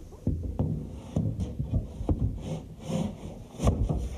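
Irregular wooden knocks and rubbing as a door bench built from framing lumber is handled and shifted; there are about five sharp knocks, the loudest near the end.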